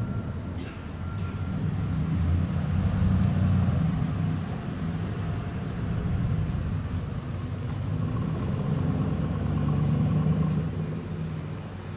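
Cars and pickup trucks driving through an intersection, their engines swelling and fading in several waves as each one passes.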